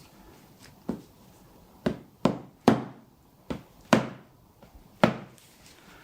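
Seven sharp knocks at uneven intervals, the loudest near the middle and near the end. They are percussive blows struck through the chiropractor's finger onto the patient's spine, cushioned by layers of cloth. This percussion technique loosens the spine ahead of a manual adjustment of the pelvis.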